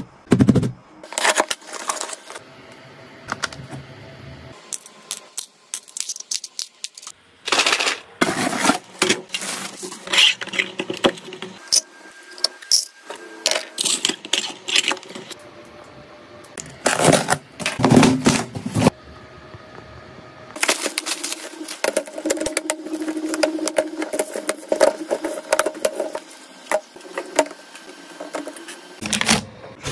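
Handling sounds of hard plastic storage organisers and cardboard parcels: sharp clicks, taps and clatters as pieces are set down, turned and fitted together, in clusters with short pauses.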